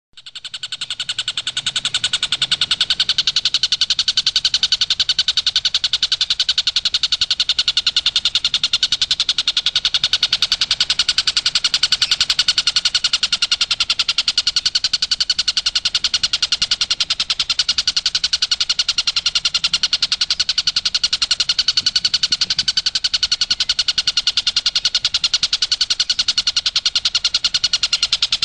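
Tengkek buto kingfisher's rapid 'tembakan' call: a fast, unbroken run of sharp, high notes repeated many times a second. It starts abruptly and keeps going without a pause.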